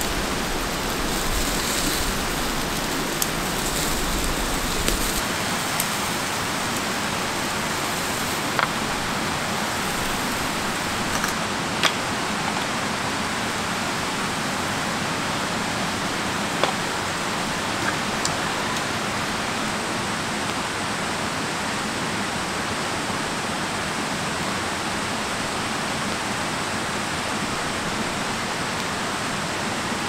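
Steady rushing of flowing water from a stream beside the campsite, even and unbroken, with a few faint clinks of camp utensils.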